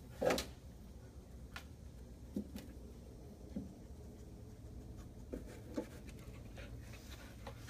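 A dog's paws and nails tapping and scuffing on the floor as it moves about: faint scattered taps, with one louder brief scuff about a third of a second in, over a low steady hum.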